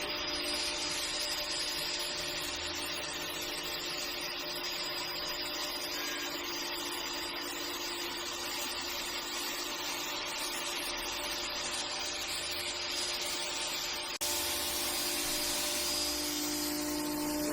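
Haıs MBY12 combination planer-thicknesser running steadily, its motor and cutter head giving a constant whine over a noisy hiss. About 14 seconds in, the sound cuts abruptly to a slightly louder stretch of the same running machine.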